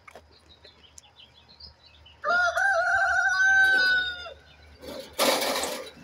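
A rooster crowing once: one long call of about two seconds that starts with a few wavering notes and ends in a held note. Near the end there is a short, loud rustle.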